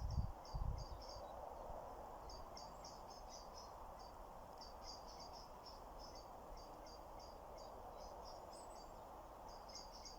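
Outdoor ambience: short high chirps repeating rapidly, about four or five a second, in runs with brief gaps, over a steady soft hiss. A few low rumbles sound in the first second.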